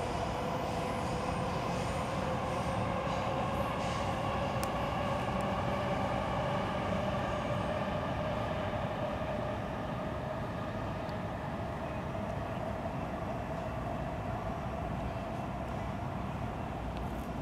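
Distant passing train: a steady hum with a few pitched tones that slowly rise in pitch, easing off a little in the second half.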